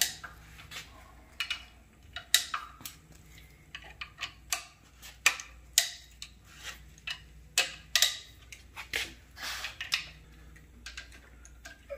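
Hand socket ratchet clicking in short, irregular runs of sharp ticks as the rocker-shaft bolts of a 392 Hemi are backed off a half turn at a time, so the shaft lifts evenly against the stiff valve springs.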